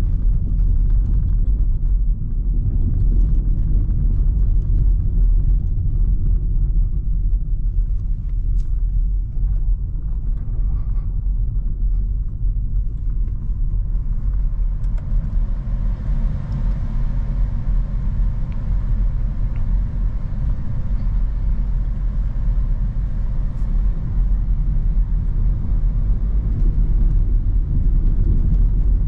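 Cabin sound of a BMW 218i Active Tourer, a 1.5-litre petrol with a seven-speed dual-clutch gearbox, driving at city speeds: a steady low rumble of engine and road noise. A higher hiss joins about halfway through.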